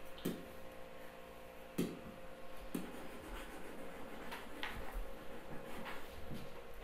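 Faint scattered taps and light scratching of a pen on a writing surface, over a steady faint hum.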